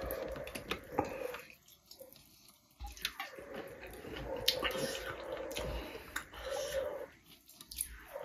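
Close-up eating sounds: wet chewing and lip-smacking, with fingers squishing curry and rice against a metal plate, heard as many short wet clicks over a steady low hum.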